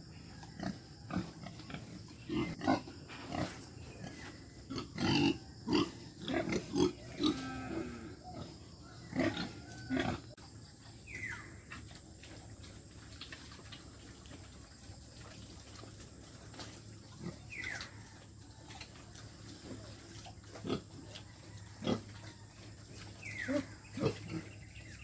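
Pigs grunting in their pen: a busy run of short grunts in the first ten seconds or so, then scattered grunts with a few brief falling squeals.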